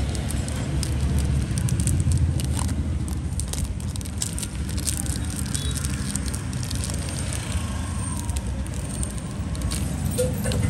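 Scattered small clicks and rustling of small objects being handled, over a steady low rumble of road traffic.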